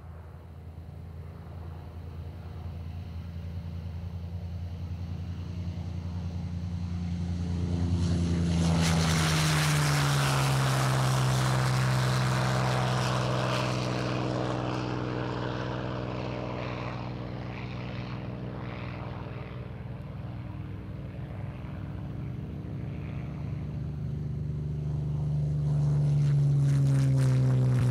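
Propeller airplane flying past. The engine drone grows louder as it approaches, drops in pitch as it passes about nine seconds in, and then fades. A second pass builds near the end with another drop in pitch.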